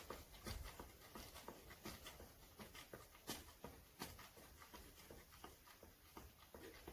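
Faint soft taps of feet landing on a floor mat, about two a second, from a person doing mountain climbers.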